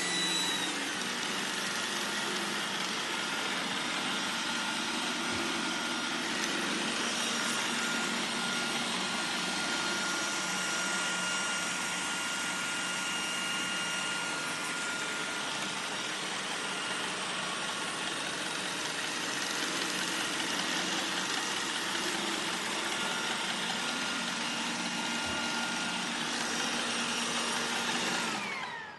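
Roomba 980 robot vacuum running steadily, a whirring hiss with a faint thin whine over it. Near the end the motor shuts off and spins down with a falling whine.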